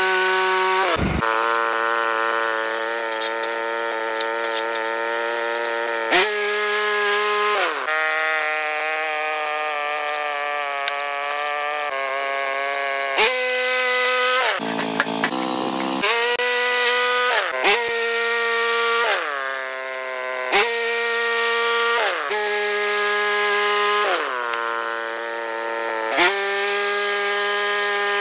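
Portable bandsaw sawmill's gasoline engine running hard while the band blade cuts lumber. Its pitch sags and recovers several times, dipping low and climbing back up about halfway, with a few sharp knocks along the way.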